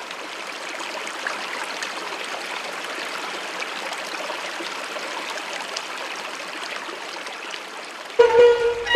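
Steady rushing of white water from a stream cascading over rocks. About eight seconds in, music cuts in abruptly and is louder.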